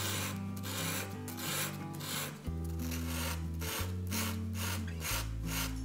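Blade of a hand-held scratchboard knife rubbed back and forth on a small sheet of fine black sandpaper, a dry scratchy rasp at about two to three strokes a second, honing the dulled blade to a fresh edge.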